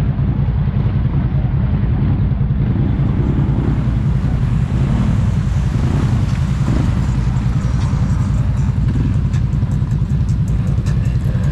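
ATV engine running steadily while riding, with wind noise on the microphone. A hiss comes in about three seconds in, and a run of short ticks comes near the end.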